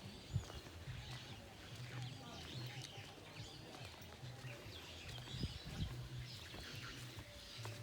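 Several birds chirping and calling in short, scattered notes, over a low hum that comes and goes in short pulses.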